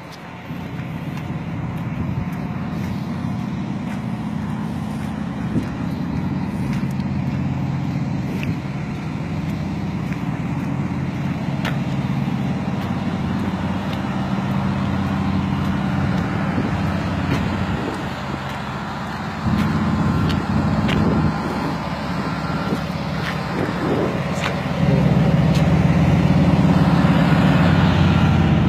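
Fire trucks' diesel engines running at a steady idle, a low hum that gets louder in steps about 19 seconds in and again about 25 seconds in.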